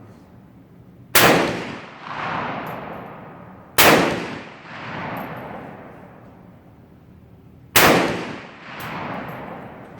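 Three rifle shots several seconds apart, each a sharp crack followed about a second later by a rolling echo.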